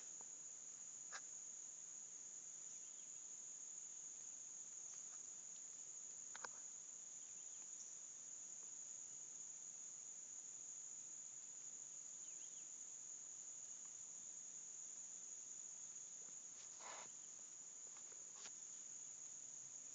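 Faint chorus of insects, most likely crickets, holding one steady high-pitched drone, with a few soft clicks at about one, six and seventeen seconds in.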